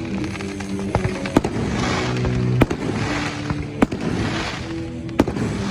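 Fireworks bursting overhead: four sharp bangs a second or so apart, with crackling hiss swelling between them, over music playing underneath.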